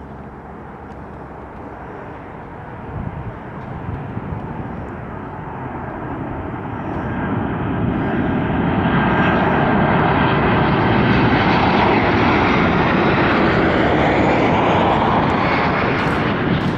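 An airplane's engines roaring, building over about eight seconds and then holding steady and loud.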